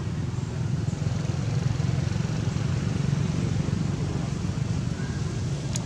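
Steady low rumble of background noise, with a single sharp click near the end.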